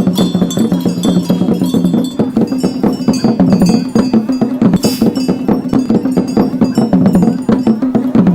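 Fast percussion music: bells and drums struck in a dense, driving rhythm over a steady low drone. It starts abruptly just before and carries on throughout.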